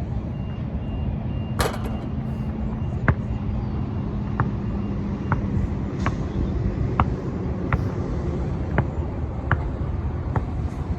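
Wind buffeting the microphone with a steady low rumble, broken by a run of sharp short knocks about once a second.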